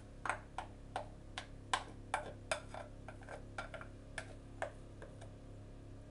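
Light, irregular clicks of a spatula tapping and scraping against a glass mixing bowl as the last of the batter is scraped out, about three a second, stopping about five seconds in.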